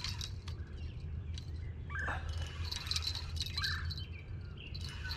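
Birds chirping, one short call repeated about every second and a half, with high twittering behind it and a steady low hum underneath.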